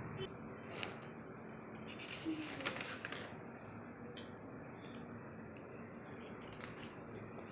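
Pages and cover of a spiral-bound file being turned and handled by hand, with a papery rustle about two to three seconds in and a few short brushes later, over a steady hiss.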